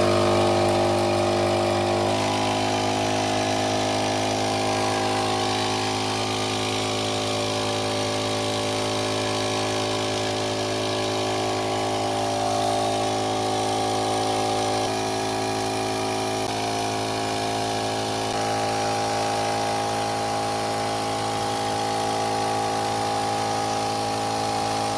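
Small car-powered portable air compressor (tire inflator) running steadily as it pumps air into a flat riding-mower tire, a constant hum whose pitch settles slightly lower about two seconds in.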